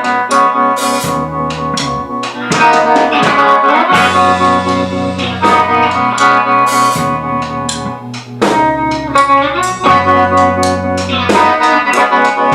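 Band playing a song: guitar chords over held bass notes that change every second or two, with drums and cymbal hits.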